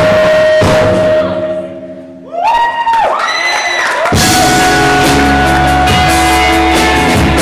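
Live rock band playing loud, recorded in the room with poor, overloaded sound. The band thins out briefly about two seconds in, a single sliding note rises out of the gap, and the full band with drums comes back in about four seconds in, under a long held note.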